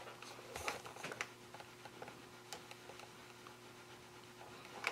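Faint rustling and a few soft taps of cotton fabric being handled and pressed flat with an iron, with one sharper tap near the end, over a faint steady hum.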